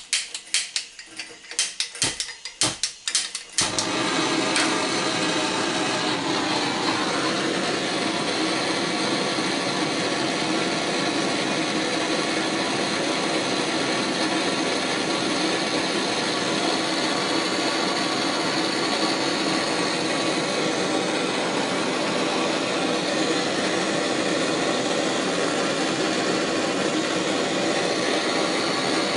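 A gas soldering torch is lit after a quick run of sharp igniter clicks, then burns with a steady rushing hiss while it heats a brass tank joint for soft soldering.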